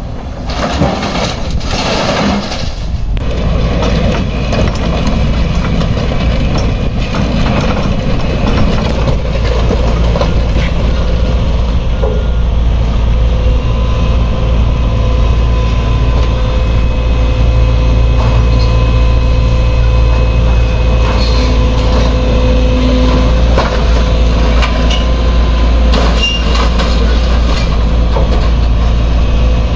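Tracked excavator's diesel engine running steadily close by, growing louder over the first few seconds and then holding, with scattered clanks of scrap metal, most of them in the first few seconds.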